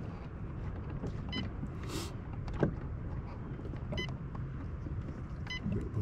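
Short electronic beeps from a Humminbird Helix 12 fish finder as its menu keys are pressed, three times, over a steady low rumble, with a sharp click about two and a half seconds in.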